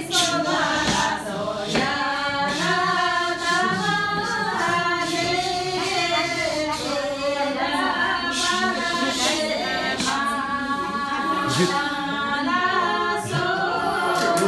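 A group of voices, women's among them, singing a melodic song together without instruments.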